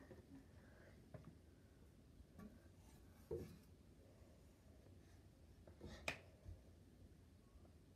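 Near silence: quiet room tone with a few faint taps, and one sharper hand clap about six seconds in.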